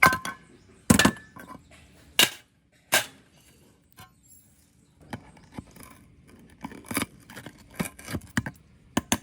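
Sharp metallic knocks and clinks of hand tools on metal parts: a few separate strikes about a second apart, then a quicker run of smaller taps in the second half.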